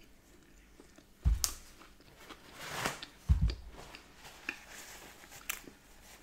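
Close-miked chewing of a mouthful of soft bagel with smoked salmon and cream cheese, with small wet mouth clicks. Two low thumps sound, about a second in and about three seconds in.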